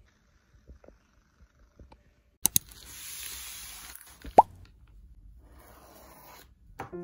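A plastic mailer bag rustling and crinkling as hands turn it over, after two sharp clicks about two and a half seconds in. A short, loud rising 'plop' sounds about four and a half seconds in.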